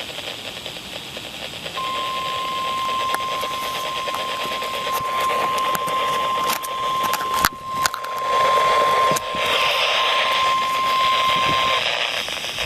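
NOAA Weather Radio 1050 Hz warning alarm tone: one steady high tone lasting about ten seconds, starting about two seconds in and stopping shortly before the end, over constant radio static. It signals that a warning, here a severe thunderstorm warning, is about to be read. A sharp click cuts through about halfway.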